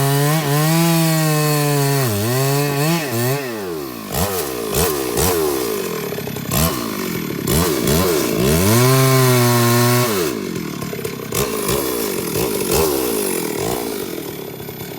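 Two-stroke chainsaw engine running at high revs. Its pitch dips and recovers over and over, and after about ten seconds the steady high note breaks into lower, wavering revs that fade toward the end.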